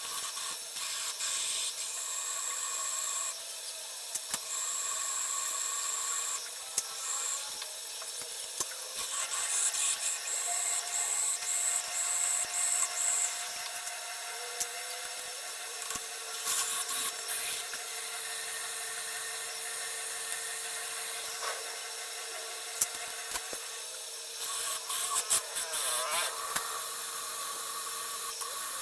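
An electric power tool runs under load, giving a steady motor tone with a rough rubbing, rasping noise over it that swells and eases from moment to moment.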